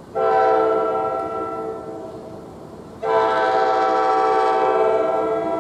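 Multi-note air horn of an NJ Transit train sounding two long blasts, the second starting about three seconds in and lasting longer than the first.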